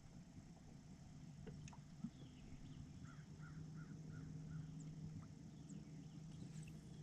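Quiet outdoor ambience: a bird calls five or six times in quick succession around the middle, over a faint steady low hum, with a single click about two seconds in.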